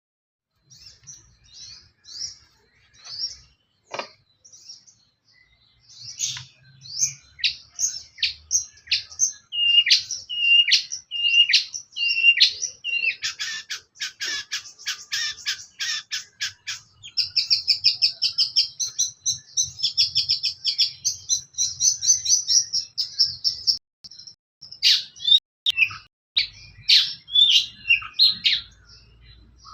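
Long-tailed shrike (cendet) singing a varied song: repeated chirped phrases, then a rapid series of clicking notes, a long fast buzzy trill, and after a short pause more mixed, jumbled notes. A single sharp click sounds about four seconds in.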